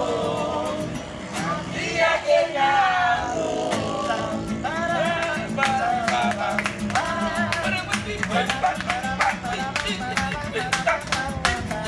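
A group singing a Latin American song in Spanish over a strummed acoustic guitar, with a steady, even beat.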